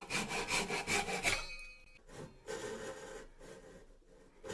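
A hand saw cutting through maple with quick back-and-forth strokes, about five a second at first, then slower and more uneven.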